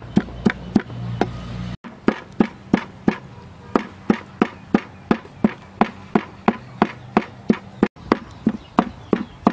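Cleaver chopping minced pork into a paste on a round wooden chopping block: a steady run of sharp strikes, about three to four a second.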